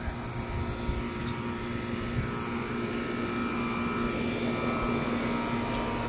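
A steady machine drone holding a constant hum over an uneven low rumble.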